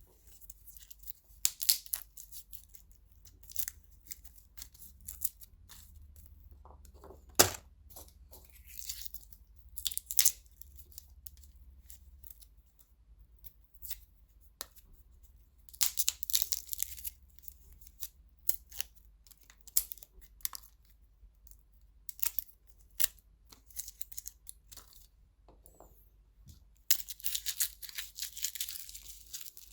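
Papery skins being peeled and torn off garlic by hand: irregular crisp crackling, rustling and small snaps in short bursts with quiet gaps, busier near the end.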